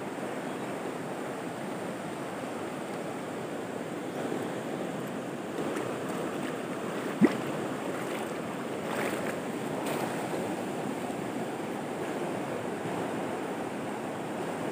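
Shallow rocky river rushing steadily over stones and riffles, with a single sharp click about seven seconds in.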